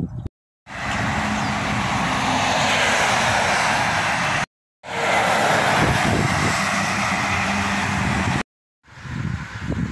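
Heavy lorries and other traffic passing close by on a road: steady loud engine and tyre noise with a low hum. It is broken twice by short gaps of silence.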